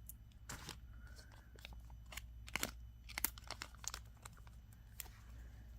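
Faint crinkling and rustling of small plastic packaging being handled, with scattered sharp clicks and crackles.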